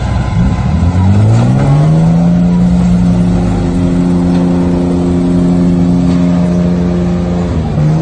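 Heavy diesel engine revving up over the first couple of seconds and held at high revs, labouring under load as a crawler bulldozer pushes a dump truck stuck in mud; the revs dip briefly near the end and pick up again.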